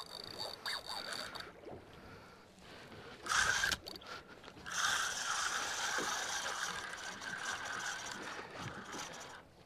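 Spinning fishing reel whirring and ratcheting as it is cranked against a hooked fish on a bent rod. A short burst comes about three seconds in, and a steady buzzing runs from about five seconds in and fades near the end.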